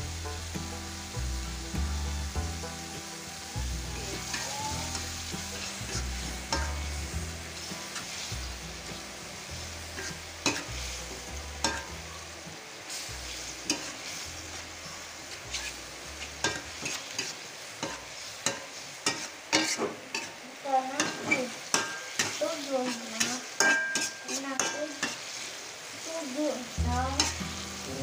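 Chilli spice paste sizzling in hot oil in a steel wok while a metal spatula stirs it. The spatula clacks and scrapes against the wok, the strokes coming thick and fast in the second half.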